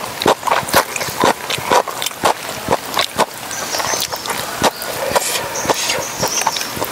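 Someone eating close to the microphone: a quick, irregular run of clicks and crunches from chewing and handling food.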